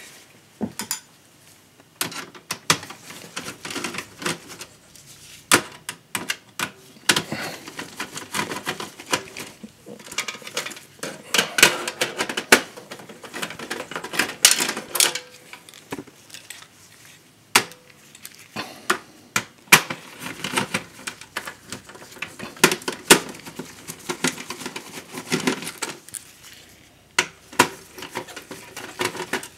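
Phillips screwdriver turning out the motherboard screws in a steel desktop computer case: a string of irregular clicks, scrapes and small metal taps and rattles, with short pauses between screws.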